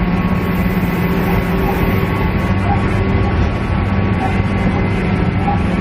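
Steady drone of a KiHa E130 diesel railcar heard from inside the passenger cabin, its engine hum running evenly with a lower hum that strengthens about halfway through.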